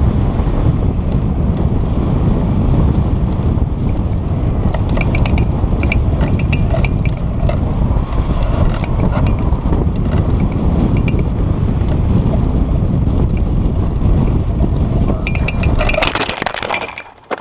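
Wind buffeting the microphone: a loud, steady rumble with faint scattered ticks and rattles over it. Near the end a short burst of handling noise, then it drops away abruptly.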